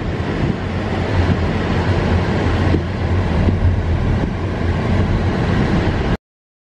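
Road noise inside a moving car: a steady, noisy tyre roar with a low drone underneath, which cuts off suddenly near the end.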